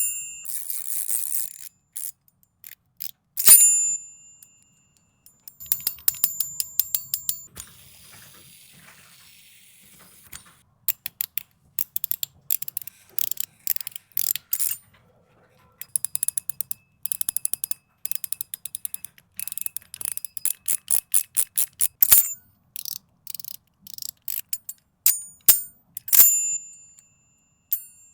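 A metal fidget toy being worked by hand: quick runs of sharp clicks and ratcheting. Now and then a louder snap rings with a short, bell-like metallic tone.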